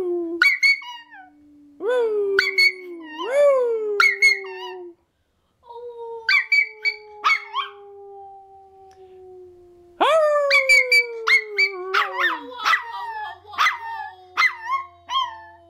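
Toy Fox Terrier puppy howling, its short wavering howls breaking into yips, with a person howling along in long, lower held notes.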